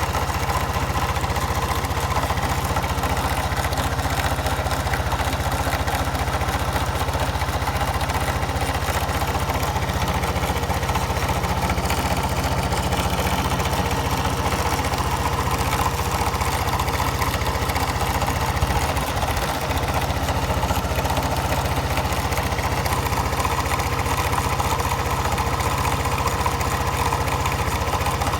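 Honda Cross Cub JA10's 109 cc single-cylinder engine idling steadily just after start-up, carrying the start-up abnormal noise found on many Cub-family engines, which a dealer says is normal and goes away once the engine warms up.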